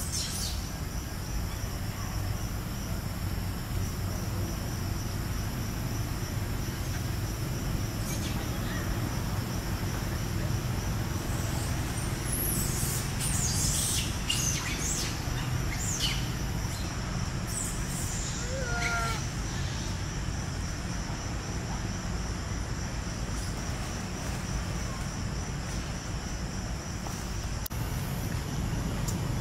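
Forest ambience: a steady high insect drone, with a cluster of bird chirps in the middle and a short run of quick calls a little later, over a low steady rumble.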